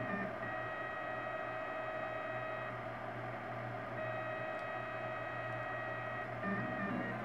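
Printrbot LC 3D printer's stepper motors whining at steady pitches as the print head moves, the pitch shifting slightly about three seconds in and again near the end, over a steady low hum.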